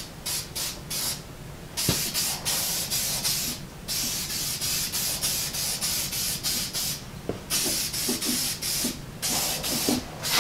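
Aerosol can of Eastwood Rust Converter spraying onto a rusty steel frame. Several quick short spurts come first, then longer hissing passes broken by brief pauses.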